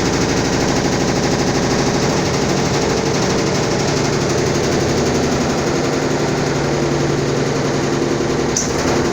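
Brastemp 11 kg washing machine agitating with a loud, rapid, steady rattling clatter, many knocks a second. It is the abnormal noise the machine makes during agitation while draining, a fault the owner has not yet traced.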